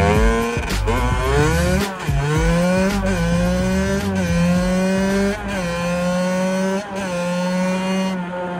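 Suzuki RM60 two-stroke dirt bike engine under way. It revs up over the first couple of seconds, then holds a steady pitch with a few brief dips as the throttle eases and opens again.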